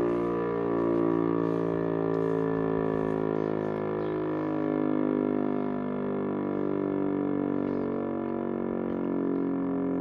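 Siemens E57 electric civil-defence siren sounding a test alarm with a steady, held tone, several pitches sounding together with a slight waver and no rise or fall.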